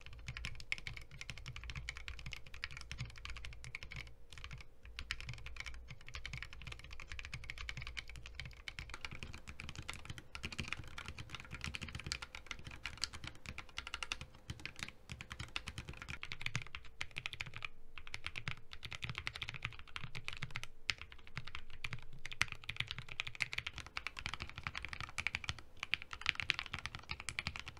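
Continuous typing on a Lily58 split mechanical keyboard with Alpaca linear switches, recorded in several case setups one after another. In the stock plate case the typing sounds clicky and high-pitched; in the 3D-printed high-profile case it sounds deeper and thockier; with tape and foam mods the cases sound much alike.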